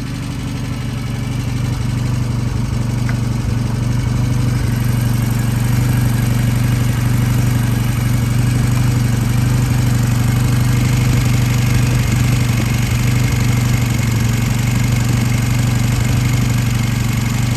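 Vintage British motorcycle engine idling steadily, a little fast. It grows somewhat louder over the first few seconds, then holds.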